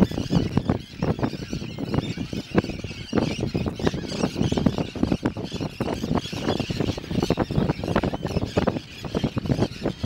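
A large flock of terns and gulls calling without pause over a bait ball, a dense chorus of shrill, squealing cries. Splashing water sounds beneath it as brown pelicans plunge among them.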